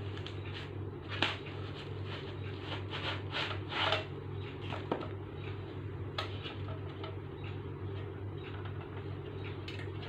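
Hands handling a boxed laser power supply and its packaging: scattered clicks, taps and rustles, the sharpest about a second in and a louder rustle near four seconds, over a steady low hum.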